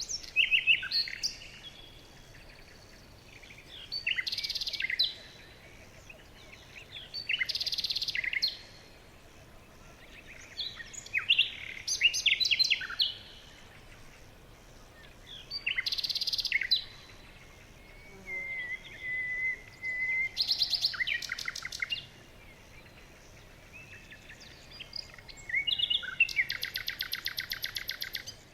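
Several birds calling in turn, a burst every few seconds: chirps, fast trills and a short whistled note, over a faint steady background hiss. A rapid, even trill near the end is the loudest call.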